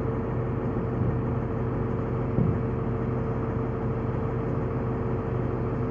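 Diesel train engine idling with a steady drone, and a single brief knock about two and a half seconds in.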